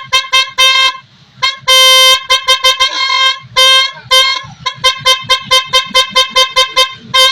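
12-volt snail-type electric horns honking in a series of blasts: a few short toots, a longer blast about one and a half seconds in and another near the middle, then a fast run of short toots, about three a second, through the second half.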